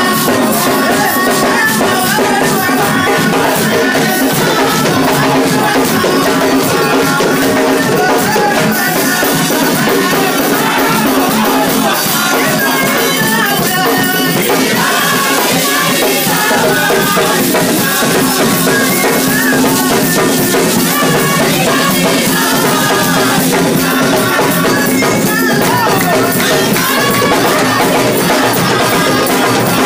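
Church praise song sung loudly into microphones by several voices, over drums and shakers keeping a steady beat with no break.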